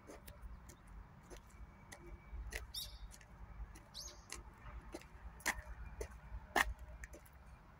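Outdoor field ambience: a low rumble of wind on the microphone, scattered sharp clicks, the loudest two about five and a half and six and a half seconds in, and two brief high warbling chirps around three and four seconds in.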